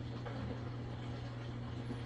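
Maytag washing machine running with a steady low hum.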